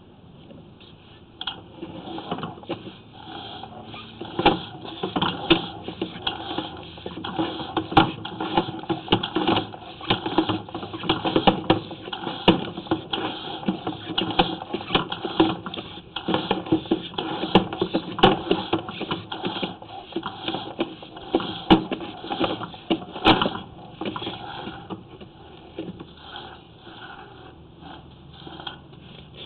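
Sewer inspection camera's push cable being pulled back and fed onto its reel: a continuous, irregular run of clicks and rattles.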